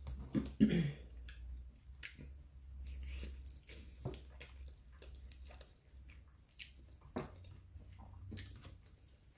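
A person chewing mouthfuls of baked spaghetti, with soft wet mouth sounds and scattered small clicks, over a steady low hum.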